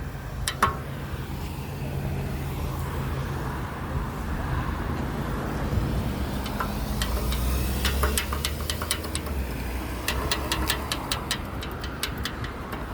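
Road traffic at a street intersection: vehicle engines running and passing. In the second half come two quick runs of sharp clicks.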